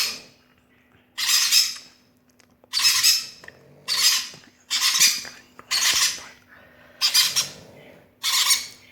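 Conure chicks giving harsh, raspy begging calls, about one short call a second, eight in all: hungry chicks begging for food.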